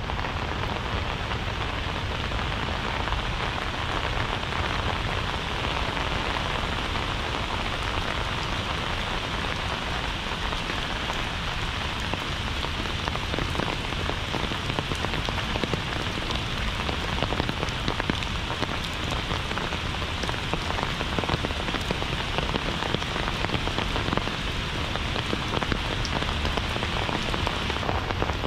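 Heavy rain falling steadily: a dense, even hiss with many small drop impacts ticking through it.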